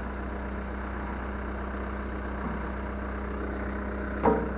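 Case 580 Super M backhoe's diesel engine idling steadily, with one short sharp sound near the end.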